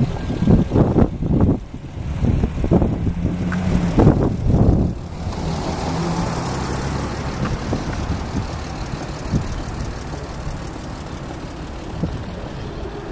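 Wind buffeting a handheld microphone outdoors, in irregular low rumbling gusts over the first five seconds, then a steady hiss of wind and street noise.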